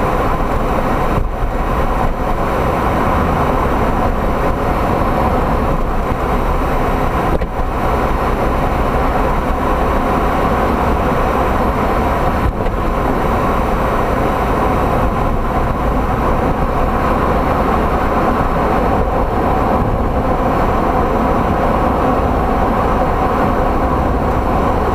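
Toyota MR2 Spyder with BC Racing BR-type coilovers: steady, loud vehicle rumble and running noise throughout. It is recorded to catch a knocking clunk in the suspension.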